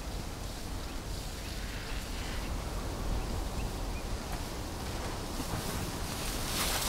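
Wind rumbling on the microphone over a steady outdoor hiss, with a few faint high chirps. Near the end comes a brief scuffing swish as the bull elephants' feet scrape the gravel road while they shove.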